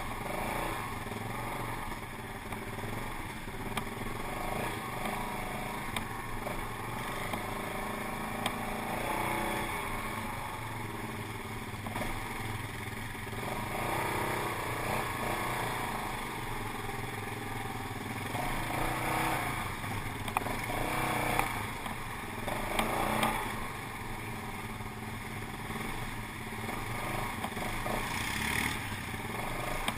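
ATV engine running at varying throttle while the quad is ridden over a bumpy, muddy trail, with a few sharp knocks from the machine jolting over the ruts about two-thirds of the way through.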